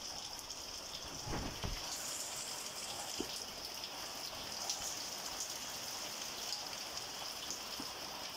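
Rain falling steadily, a constant high hiss, with a few faint drips and ticks of water.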